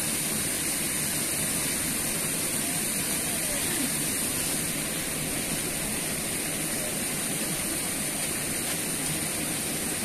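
Steady rushing of flowing water in an irrigation channel, an even, unbroken noise with a thin high whine held constant above it.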